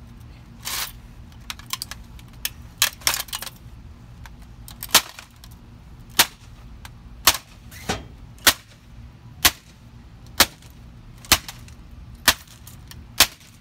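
A hammer striking the opened plastic base and exposed circuit board of a Toshiba laptop, each blow a sharp crack. A few irregular hits come in the first few seconds, then steady blows about once a second.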